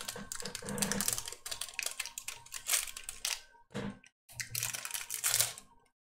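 Rapid, irregular clicking and clattering of small hard objects, with a short break about four seconds in.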